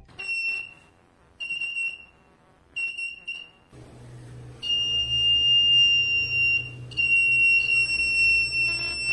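Piezo buzzer of a homemade ultrasonic-sensor obstacle alarm sounding a high-pitched tone: three short beeps about a second and a half apart, then a steady continuous tone from about halfway through, broken once briefly. The tone signals an object held close in front of the sensor.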